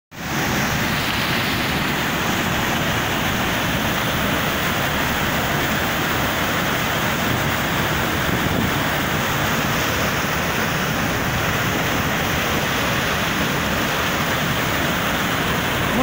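Waterfall heard at close range: a steady, loud rush of heavy white water pouring down a rock face and crashing below.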